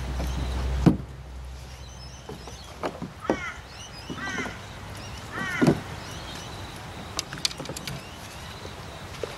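Handling noises as fishing rods and gear are fitted onto a plastic sit-on-top kayak: a sharp click about a second in, then three short squeaks about a second apart, with small knocks and ticks between.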